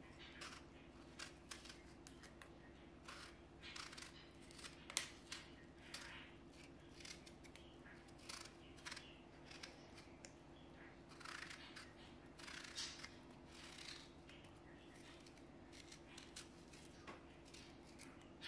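Small knife cutting wedges from a ripe peach held in the hand: quiet, short, irregular cutting sounds every second or so, with one sharper one about five seconds in, over a faint steady hum.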